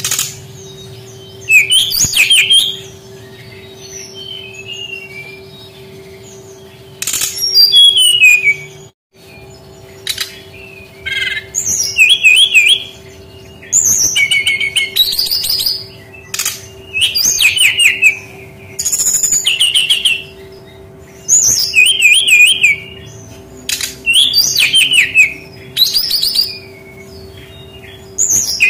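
Brown-chested jungle flycatcher singing: short phrases of clear whistles and quick warbling trills, repeated about every two seconds with short pauses between, over a faint steady hum.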